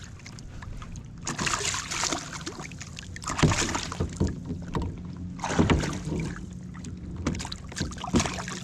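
Irregular rustling, knocks and splashes in a kayak as a just-caught bass is landed and unhooked, over a faint low steady hum.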